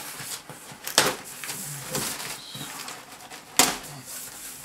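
Cardboard box flaps being pulled open and crumpled brown packing paper rustling, with two sharp snaps, about a second in and near the end.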